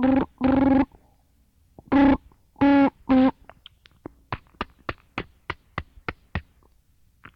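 A child's voice making the same short, steady-pitched sound over and over, a few loud ones at a time. Midway it turns into a quicker run of short, quieter blips, about three a second.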